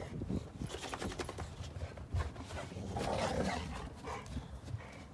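Boxer dogs playing in snow: a dog growls about three seconds in, over repeated crunching steps in the snow.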